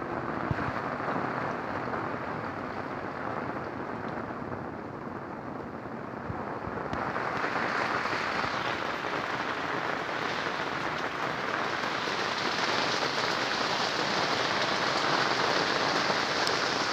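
Steady rain falling, growing louder and reaching higher in pitch from about seven seconds in.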